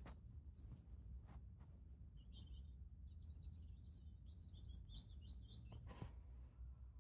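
Faint chirping and twittering of small birds over a low, steady background rumble, with a few soft clicks, the sharpest about six seconds in.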